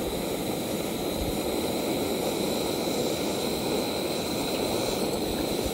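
MSR Pocket Rocket Deluxe gas canister stove burning at full flame under a pot, a steady jet-like hiss.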